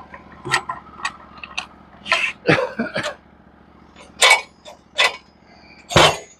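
Cant hook levering a log over on a steel sawmill bed: a series of knocks, scrapes and creaks as the hook bites and the log shifts, ending in a heavy thump as the log rolls onto the bed near the end.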